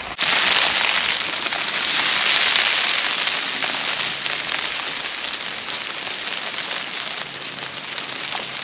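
Steady rain falling on tent fabric: a dense hiss with scattered drop taps.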